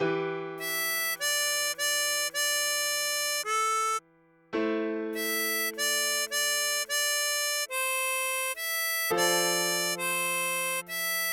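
Tremolo harmonica playing a slow melody of held notes, a new note roughly every half second, with a brief pause about four seconds in.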